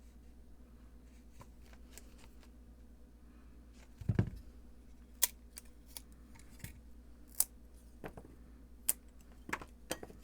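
Pliers snapping small breakaway tabs off a printed circuit board: a dull knock about four seconds in, then a string of sharp clicks and snaps, about nine in all.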